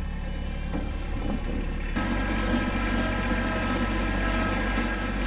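An engine running steadily, which grows louder and fuller about two seconds in, as when a vehicle is throttled up or sets off.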